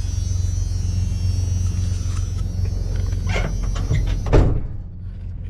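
Dodge Ram 1500 cargo van engine idling steadily after an oil change. Near the end there are a couple of knocks, the loudest a thump about four and a half seconds in, after which the sound turns quieter and duller.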